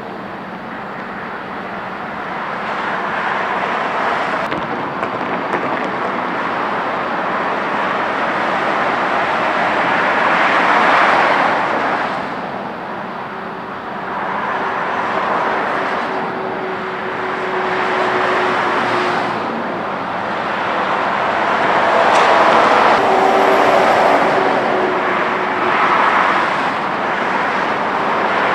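Freeway traffic: a steady rush of passing cars and tyres that swells and fades every few seconds, with a steady hum coming in twice.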